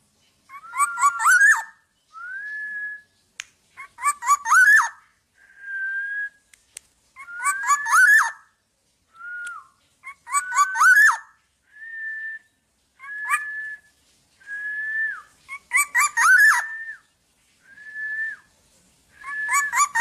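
Black-naped oriole (kepodang) calling at close range. Loud phrases of rising fluty whistles overlaid with a harsh, scratchy sound come every few seconds, alternating with single clear whistled notes.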